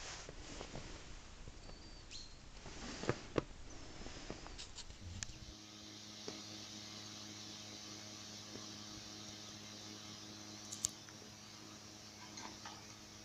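Quiet outdoor ambience with a few sharp clicks and faint short bird chirps. About five seconds in, it changes abruptly to a steady low electrical hum with occasional faint clicks.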